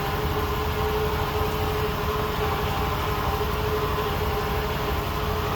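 A steady mechanical hum with a low rumble and a faint, constant whine, unchanging throughout.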